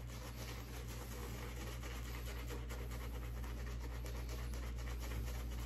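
Badger-hair shaving brush swirled over shaving-soap lather on the face, a soft continuous wet scrubbing with fine crackling from the bristles and foam, over a low steady hum.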